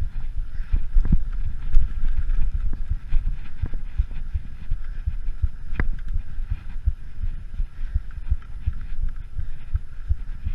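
Mountain bike jolting down a rough dirt and rock trail: a steady run of low thumps and knocks, with a few sharper clacks.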